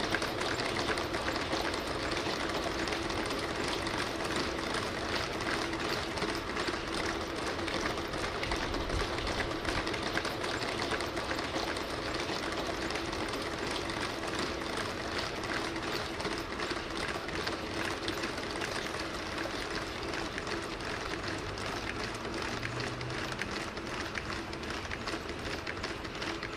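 A team of Boston Dynamics Spot quadruped robots walking in step while towing a box truck. Their electric leg motors make a steady hum, and many feet tap rapidly on asphalt in a continuous mechanical clatter.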